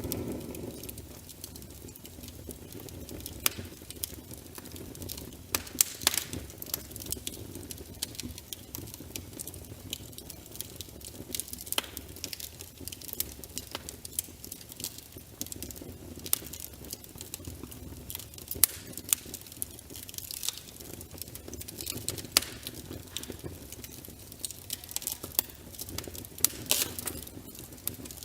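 Wood fire crackling in a fireplace: irregular sharp pops and snaps, several a second, over a steady low rumble of the burning logs.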